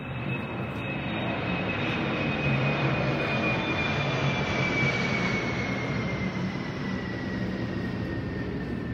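Jet airliner passing low overhead: a broad rushing noise that swells and then eases, with a high whine slowly falling in pitch.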